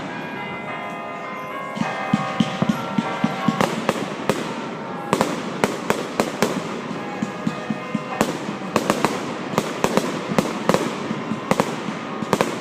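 Aerial fireworks going off in quick succession: many sharp bangs and crackles, a few each second, growing denser from about two seconds in.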